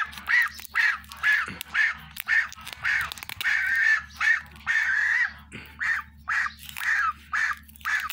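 Gosling calling over and over in protest while being held and having its wing taped: short high peeps about two a second, each rising then falling in pitch, with a few longer drawn-out calls.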